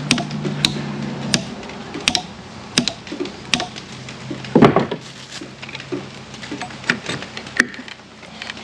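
Hammer tapping a stuck square-cut nail spike in an old pine beam to loosen it, with sharp metal-on-metal knocks about every 0.7 s for the first few seconds. A louder clunk comes around the middle, then a few lighter knocks near the end as a pry bar is set against the spike.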